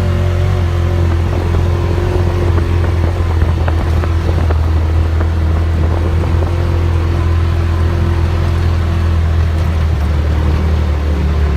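Polaris RZR Turbo side-by-side engine running at a steady, loud drone while it drives over bumpy sand, with scattered light knocks and rattles.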